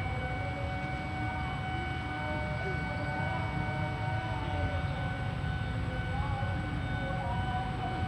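A passing train: a steady low rumble with a high ringing tone held throughout, and fainter wavering tones over it.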